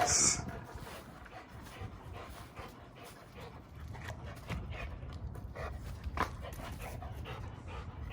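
Large American bully dog panting hard while working a spring pole, with a few short knocks in the second half.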